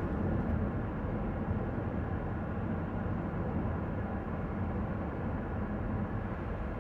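Steady low road and engine noise heard from inside a moving car's cabin.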